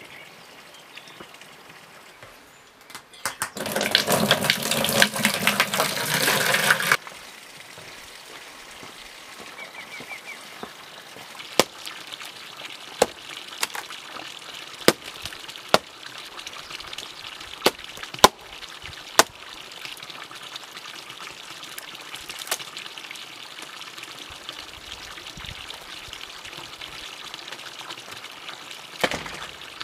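Water gushing loudly for about three seconds, likely from a hose into a bucket. Then a hatchet chopping dry wood: about nine sharp knocks at irregular intervals, over a steady faint hiss.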